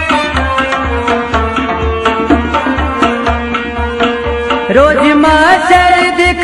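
Kashmiri folk music: a tumbaknari pot drum beats a steady rhythm under rabab, harmonium and bowed sarangi holding a melody. Near the end a man's voice comes in singing, with sliding, ornamented notes.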